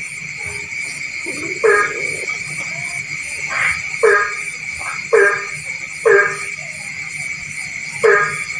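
Frogs croaking at night in a rice field: short, loud, nasal croaks repeat every one to two seconds, about five or six in all. A steady, high-pitched chorus of calls runs unbroken behind them.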